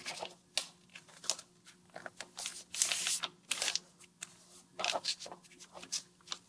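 A sheet of paper being folded and creased by hand into a paper airplane: scattered rustles and crinkles, busiest a little before the middle, over a faint steady hum.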